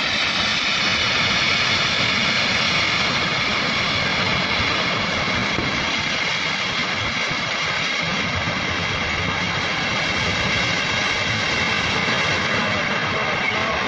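Loud, steady rushing roar of a river in flood.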